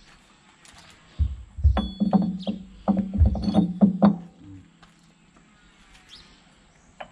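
Cast steel excavator bucket tooth being pushed and knocked onto its adapter. A run of metallic clanks and dull knocks starts about a second in and lasts about three seconds.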